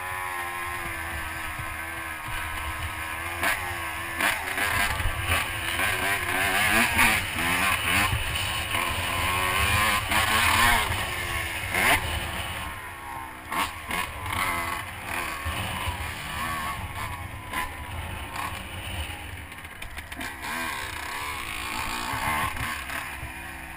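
Honda CR125 dirt bike's two-stroke single-cylinder engine being ridden hard, its pitch climbing and dropping over and over with throttle and gear changes, with a few sharp knocks along the way.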